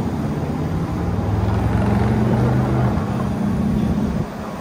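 A motor vehicle's engine running steadily, its low hum heard over wind noise on the microphone, and dropping off suddenly near the end.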